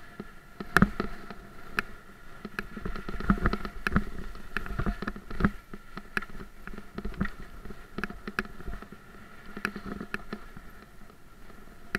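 Haibike Trekking 4.0 electric bike ridden over a rough, sandy dirt trail: a steady motor whine under low tyre and wind rumble, with frequent irregular rattles and knocks from bumps.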